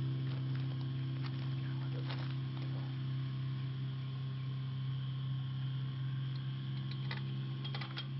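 Steady low electrical hum with a few overtones, unchanged throughout, with a few faint clicks.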